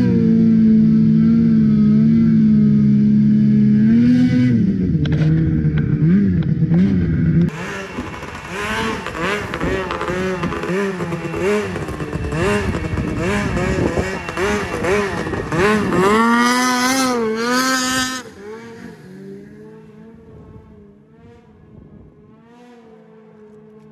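Race snowmobile engine idling steadily, then blipped in short revs. After that it revs hard, rising and falling, and climbs steeply near the end of the run as the sled skims the open water. The sound then drops off quickly and fades as the sled moves away.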